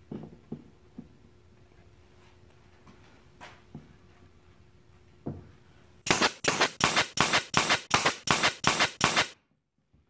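Pneumatic nail gun firing about a dozen times in quick succession, about four shots a second, nailing pine shelf boards together. Before it come a few light knocks of the boards being set in place on the workbench.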